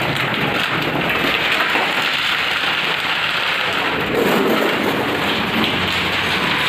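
Roll of galvanized steel sheet unrolling across a concrete floor: the thin sheet flexes and rattles as it lays out, a steady, even noise with no pauses.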